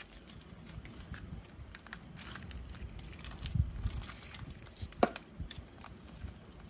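Handling noise from tying up a live mud crab with string on a woven plastic sack: scattered rustles and small clicks, with one sharp click about five seconds in.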